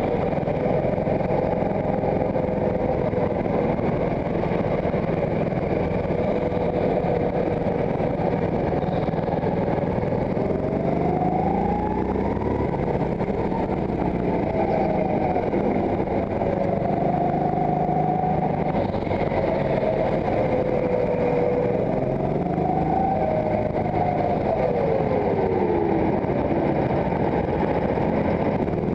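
Go-kart driven at speed, heard from on board: steady running noise with a tone that rises and falls in pitch with the throttle, climbing about twelve seconds in and again near twenty-three seconds, then dropping away steeply.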